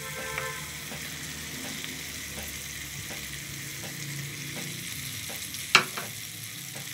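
Spiced oil and masala sizzling steadily in a saucepan as boiled mashed potatoes are dropped into it, with one sharp knock near the end.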